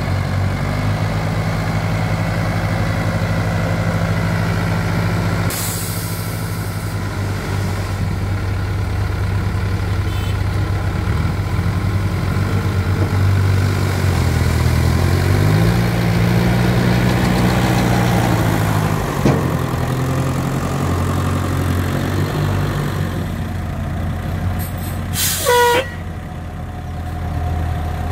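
Light dump truck's diesel engine running steadily, rising in pitch for a few seconds in the middle as it raises the tipper bed to dump sand. A short hiss of air comes about five seconds in, and a brief loud hissing squeal near the end.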